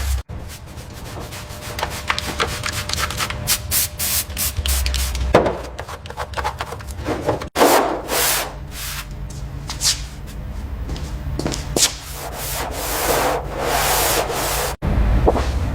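Repeated sanding and rubbing strokes on car bodywork, in short clips cut together abruptly.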